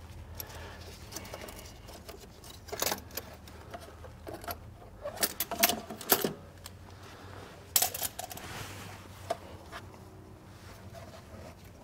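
Scattered metallic clicks and clinks of a band-clamp oil filter wrench being worked and lifted off a spin-on engine oil filter, a few short clatters spread over several seconds.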